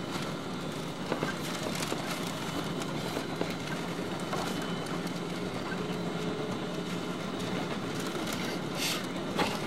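Cabin noise inside a Boeing 777-200 taxiing: a steady engine and airflow hum with a low drone, and a few light knocks and rattles as the aircraft rolls along the taxiway, the sharpest one near the end.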